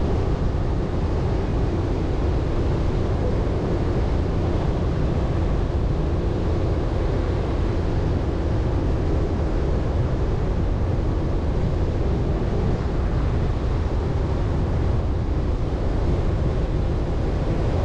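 Chevrolet Colorado ZR2 Bison pickup driving steadily over soft beach sand: a low, even rumble of engine and tyres that holds without change, with wind buffeting the microphone.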